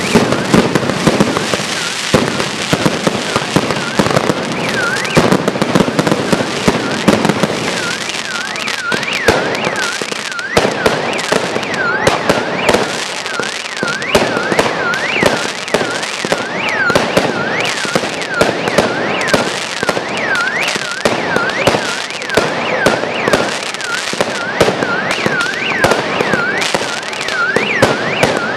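Fireworks display: continuous crackling and popping from aerial bursts, with sharp bangs. From about five seconds in, a high rising-and-falling whistle repeats over and over above it.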